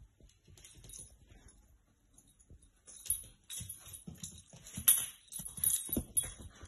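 Cocker spaniel puppy's claws clicking and scrabbling on a laminate floor as it plays, with a collar tag jingling. Mostly quiet for the first few seconds, then a quick run of clicks and taps from about three seconds in, the loudest near five seconds.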